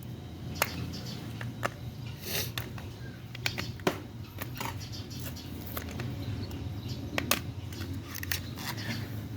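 Scattered light clicks and taps of small metal parts being handled, diesel glow plugs being checked, over a steady low hum.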